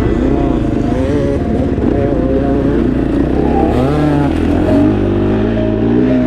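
KTM 450 SXF's single-cylinder four-stroke engine revving up and down as the dirt bike climbs.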